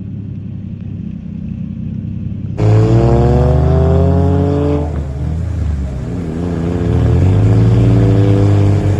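Car engine running low, then, about two and a half seconds in, suddenly much louder and revving with rising pitch. It eases off briefly near the middle, then climbs again and holds a steady high rev.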